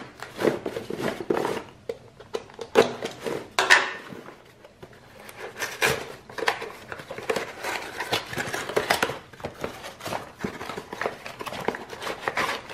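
A utility knife slicing through a cardboard mailing box, then the cardboard being torn and the flaps pulled open by hand: irregular scratching, ripping and rustling with many short sharp strokes.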